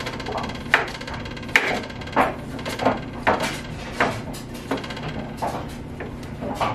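Kitchen knife chopping cooked chicken breast on a wooden cutting board: about ten sharp knocks of the blade on the board, roughly one every two-thirds of a second, a little uneven.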